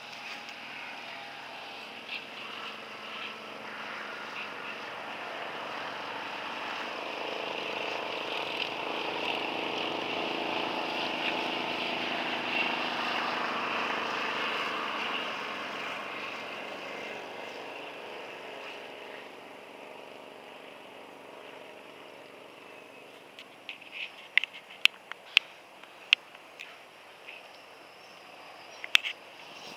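A distant engine passing by, swelling over several seconds and then fading away. Near the end come a few sharp knocks.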